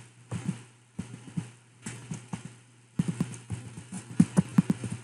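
Typing on a computer keyboard: irregular keystrokes, with a quicker run of keys in the last two seconds, over a steady low hum.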